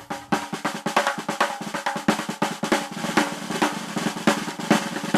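Fast drum entrance music: rapid snare hits and rolls over a few held notes.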